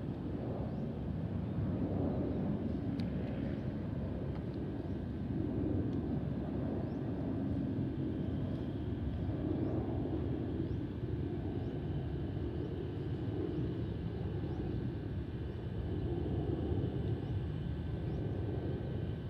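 Distant jet engines of an AirAsia X airliner flying away overhead: a steady, wavering low rumble.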